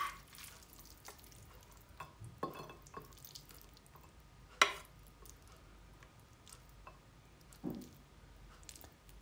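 Metal kitchen tongs tapping and clicking against a ceramic pasta bowl as spaghetti is laid into it, with soft wet sounds of the pasta. A few scattered taps, the sharpest about halfway through, and a duller thump near the end.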